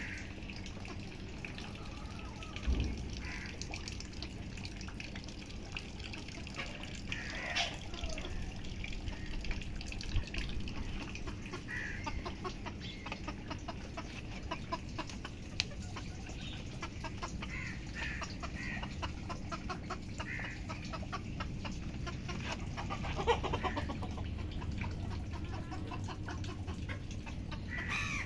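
Caged domestic chickens clucking in short calls scattered every few seconds.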